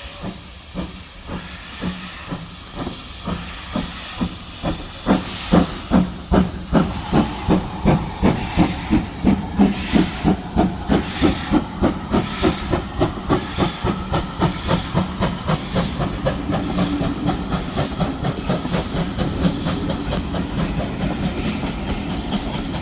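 GWR 66xx class 0-6-2 tank locomotive 6695 pulling away under steam, with a hiss of steam. Its exhaust beats quicken from about two a second to a rapid beat. They are loudest a few seconds in and grow quieter and closer together toward the end as the train picks up speed.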